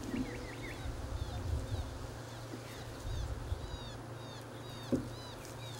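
Outdoor ambience on a grassy lawn: a steady low rumble with many short, high chirps repeating in the second half and a single knock about five seconds in.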